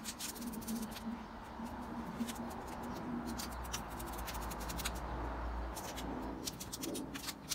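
Clear transfer tape being peeled off a vinyl decal on a van's painted steel door: irregular crackling and crinkling of plastic film as it comes away.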